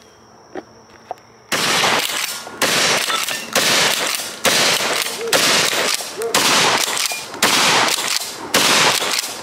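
A Fed Arms 20-gauge shotgun is fired about eight times in quick succession, roughly one shot a second, starting about a second and a half in. Two faint clicks come just before the first shot.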